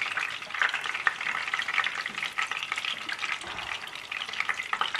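Hot oil sizzling and crackling with many small pops as bone-in chicken drumsticks fry a second time at about 180°C in shallow oil, the double fry that crisps the karaage coating.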